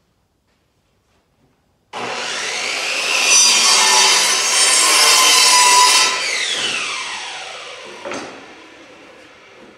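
An electric saw starts about two seconds in and cuts through a wooden board to length, then is switched off and its blade winds down with a falling whine. A short knock comes near the end as it dies away.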